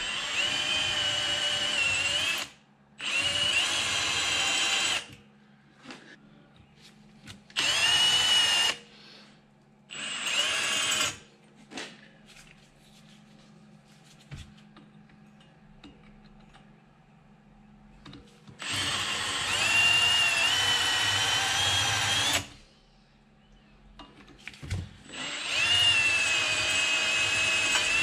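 Electric drill running in six bursts of one to four seconds, with short pauses between them. Its whine is steady within each burst. It is drilling out broken bolt threads from threaded holes in the track tensioner parts.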